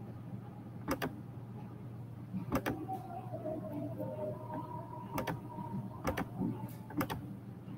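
About five short, sharp clicks, spaced a second or more apart, from someone working at a computer. A faint steady low hum runs beneath them.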